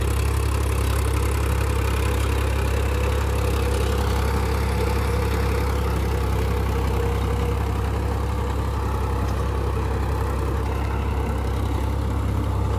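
Powertrac Euro 50 tractor's three-cylinder diesel engine running steadily under load, driving a rotavator that is tilling dry soil.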